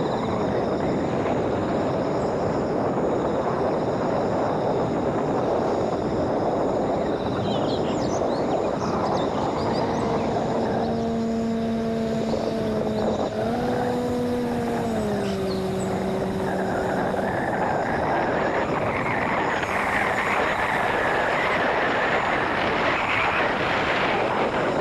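Home-built electric RC airplane in flight, its motor and 5-inch propeller buzzing over a steady rushing noise. From about eleven to seventeen seconds in, a clear hum from the motor rises briefly and then drops in pitch as the throttle changes.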